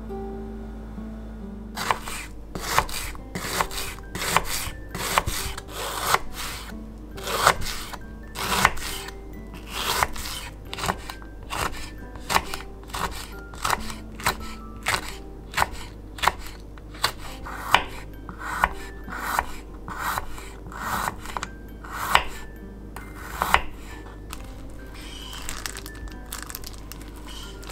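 Kitchen knife cutting ingredients on a wooden cutting board: a long run of sharp knocks, a little more than one a second, that stops a few seconds before the end. Soft background music plays underneath.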